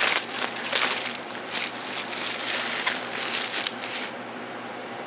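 Packaging rustling and crinkling in a series of irregular bursts as items are handled and taken out of a box. The bursts die away about four seconds in, leaving a low steady hiss.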